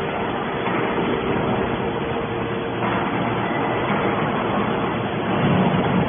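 Hydraulic scrap metal baler running: a steady machine whir from its hydraulic power unit, with a faint steady pump tone.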